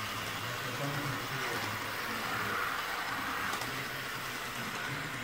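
G-scale model locomotive running steadily along the track with a continuous engine-like hum.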